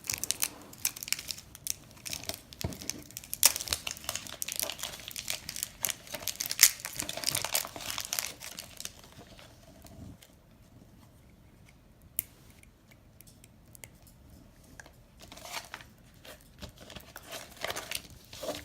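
Plastic packaging crinkling and tearing as a small toy accessory is unwrapped by hand. The rustling is busy for about the first nine seconds, goes quiet, then starts again near the end.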